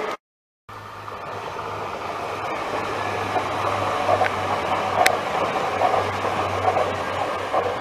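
TER regional multiple-unit train passing: a steady low hum and rushing wheel noise that build up after a brief dropout near the start. From about three seconds in come regular clicks of the wheels over the rail joints, with one sharper click in the middle.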